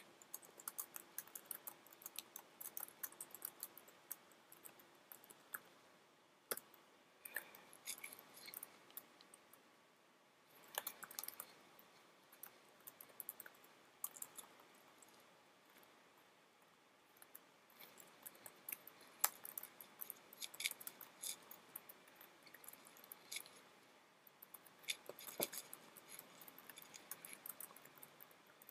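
Faint keystrokes on a computer keyboard: runs of typing broken by several short pauses.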